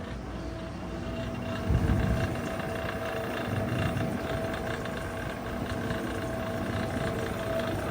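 Vintage Electrohome dehumidifier running: its compressor and quite noisy fan motor make a steady hum with a constant higher tone. A brief louder low rumble comes about two seconds in.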